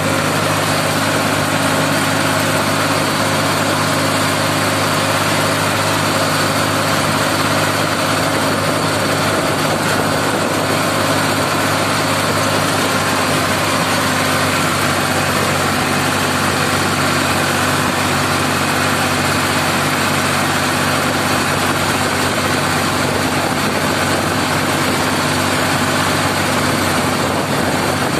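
Ford 3600 tractor's three-cylinder engine running steadily at full speed, heard from the driver's seat just behind the exhaust stack, with an unchanging pitch.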